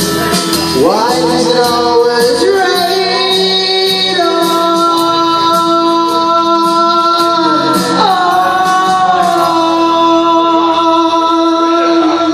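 A man singing long, held notes into a microphone over a backing track, sliding up into a new note about a second in and again about eight seconds in.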